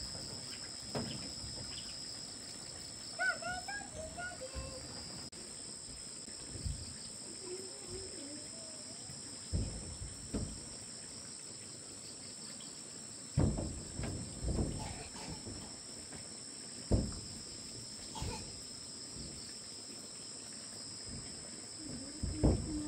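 A steady, high-pitched chorus of insects, crickets or similar, droning without a break. A few short chirps come about three seconds in, and several dull knocks stand out above the drone, the loudest near the end.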